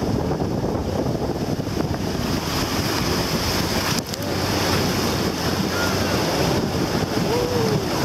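Whitewater rapids rushing and splashing against an inflatable raft, with wind noise on the microphone.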